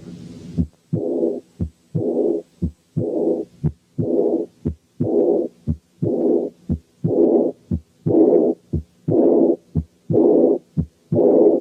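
Stethoscope recording of heart sounds with an early diastolic murmur of aortic regurgitation (aortic incompetence), heard at the base of the heart. It beats about once a second: short heart sounds, each followed by a hissing, high-pitched murmur that starts right after the second sound and fades away.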